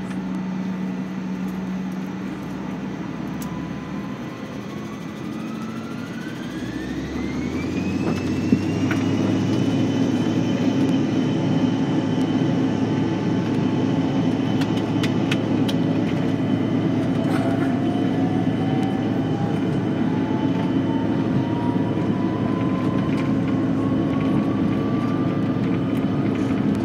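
Jet airliner engines spooling up to takeoff power, heard from inside the cabin. A whine climbs steeply over several seconds and the engines grow louder about eight seconds in, with a single knock. The engines then run at a steady, loud level as the plane accelerates down the runway, while a second whine slowly rises.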